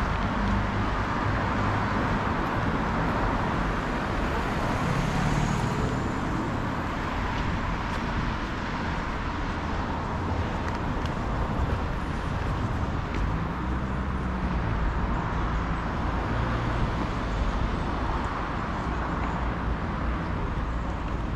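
Steady street noise of road traffic, with the low hum of passing car engines.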